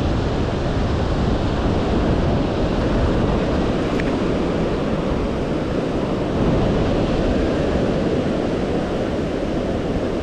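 Ocean surf washing onto the beach, a steady rush with no breaks, with some wind noise on the microphone.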